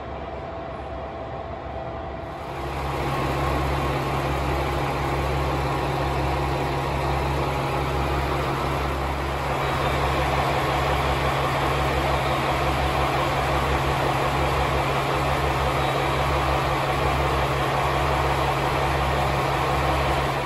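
A train standing at the platform with its machinery running: a steady low hum and rhythmic rumble under a broad noise, starting suddenly a couple of seconds in.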